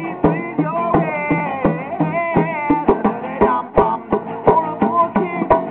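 Live acoustic band music: a melody that slides in pitch over sharp percussion hits keeping a steady beat.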